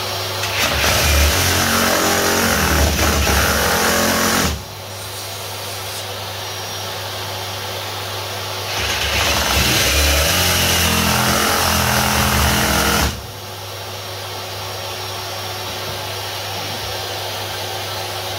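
Ryobi 18V brushless one-handed reciprocating saw ripping lengthwise along a treated pine stud, its motor running in two bursts of about four seconds each with a pause between, each burst cutting off suddenly.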